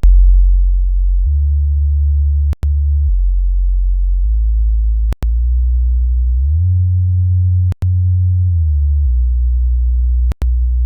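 Subwoofer test tones: a loud, pure, deep hum that steps up and down in pitch every second or two. It cuts out briefly about every two and a half seconds.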